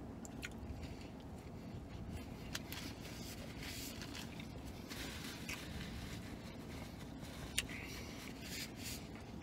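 Paper napkin rustling and crinkling as it is wiped across the mouth and then folded between the hands, in several short scuffs, with one sharp click about three-quarters of the way through.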